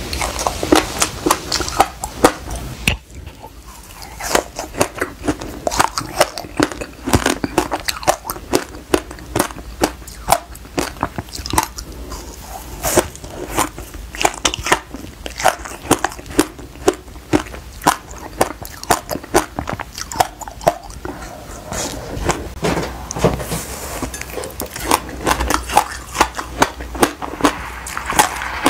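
Close-miked biting and chewing of passion fruit coated in black sesame seeds: a dense, irregular run of sharp, crisp crunches and crackles from the seeds between the teeth, with a short lull about three seconds in.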